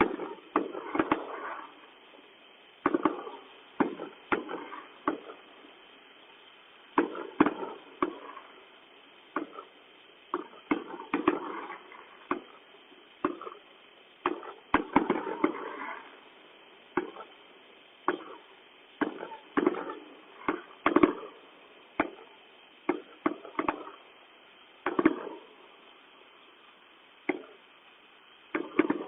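Fireworks going off in irregular bursts: sharp bangs, many followed by short crackling clusters, with brief quiet gaps between them.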